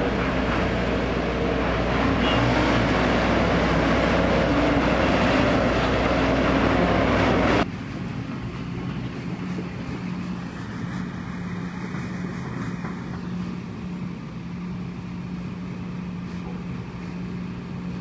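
Diesel engines of a Sumitomo SH210 hydraulic excavator and a ten-wheel dump truck running loudly. About eight seconds in the sound drops abruptly to a quieter, steady engine hum as the excavator digs and loads dirt into the truck.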